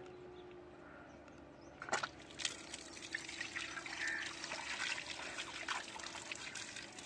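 Water from a newly installed solar-powered submersible pump pouring out of a narrow pipe outlet and splashing over a man's hands, starting about two seconds in after a short knock. This is the first flow from the pump, showing that it is working.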